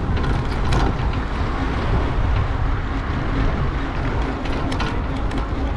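Wind buffeting the microphone of a bike-mounted action camera while riding a bicycle, a steady low rumble, with a few short rattling clicks near the start and again near the end.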